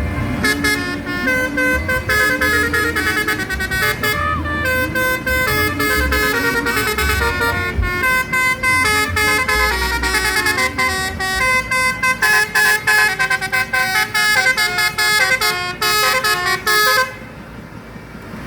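Basuri telolet bus horn playing a tune: a long run of short horn notes stepping up and down in pitch, which stops near the end.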